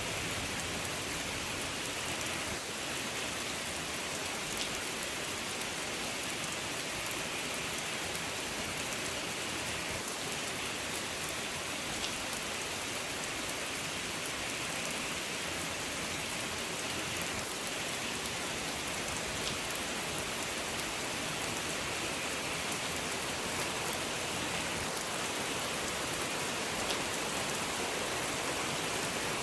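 Steady rain: an even hiss of falling water with a few sharper drop ticks now and then, and no thunder.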